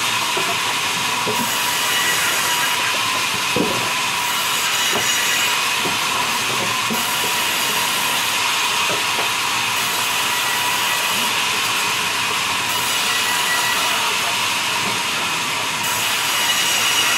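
Sawmill band saw running steadily and cutting logs, a continuous hiss with a steady high whine. A few dull wooden knocks as logs are handled, one louder about three and a half seconds in.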